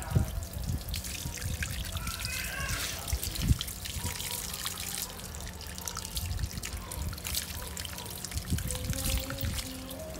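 Tap water pouring in a steady stream and splashing onto a wet dog's coat and the concrete beneath it as the dog is washed by hand, with a couple of brief thumps.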